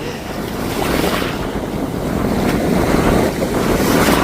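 Sea surf washing onto the beach, swelling louder after about a second, with wind buffeting the microphone.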